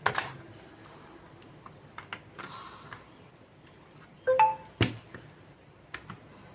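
Scattered small clicks and knocks of a laptop being taken apart by hand. About four seconds in there is a short ringing metallic ping, then a sharper knock.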